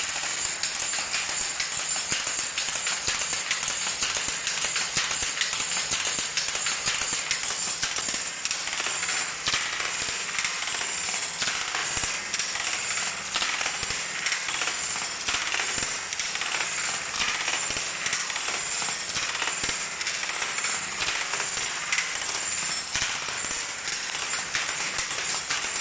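An old single-width Hattersley loom weaving tweed: a continuous rapid mechanical clatter of knocks and clicks as the shuttle is thrown and the sley beats up, steady throughout.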